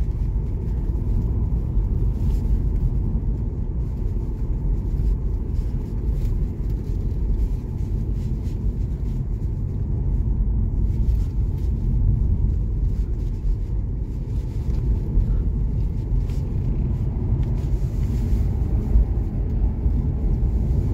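Steady low road and tyre rumble of a car driving along, heard inside the cabin.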